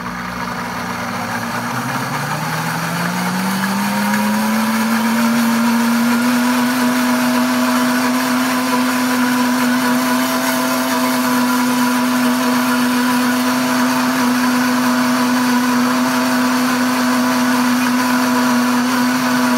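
Pampered Chef Deluxe blender motor running on speed 7, its pitch rising over the first several seconds as it spins up, then holding steady. It is churning a thick paste of roasted hazelnuts and cocoa.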